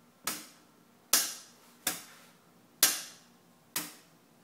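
A boat's light switch flicked on and off: five sharp clicks at uneven spacing, roughly one a second, each with a short fading tail.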